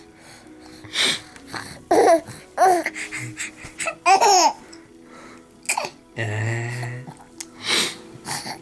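Several short bursts of laughter, each falling in pitch, with a drawn-out buzzy sound about six seconds in, over faint steady background music.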